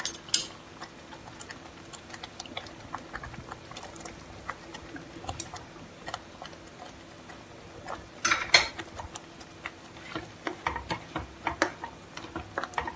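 Watery semolina (rava upma) mixture simmering in a kadai on a gas flame, bubbles popping in irregular small ticks, with a louder burst of clicks about eight seconds in, over a faint steady hum.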